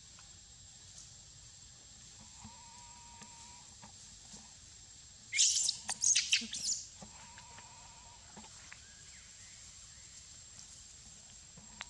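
Baby macaque screaming while another monkey grabs and wrestles it: a cluster of shrill squeals lasting about a second and a half, midway through. Faint wavering calls come before and after.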